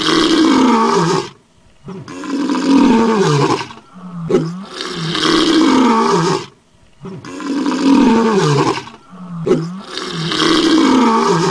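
Lion roaring: a loud roar about a second and a half long, each led by a short grunt, repeated evenly about every two and a half seconds, about five times.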